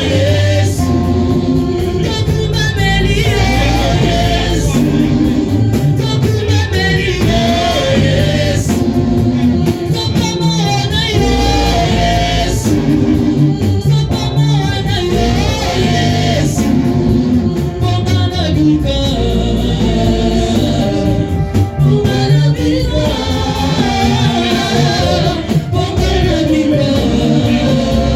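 Gospel worship song in a church: voices singing over a band with a steady, prominent bass line.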